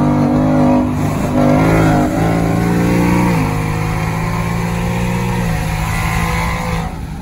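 Ford Mustang GT's 5.0 V8 under hard acceleration, heard from inside the cabin, its pitch stepping down a few times as the 10-speed automatic shifts up. The engine eases off near the end.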